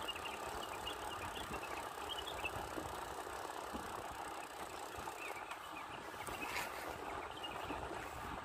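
Steady rushing noise of a bicycle on the move, tyres and air going past, with short high chirps now and then and one brief sharp click about six and a half seconds in.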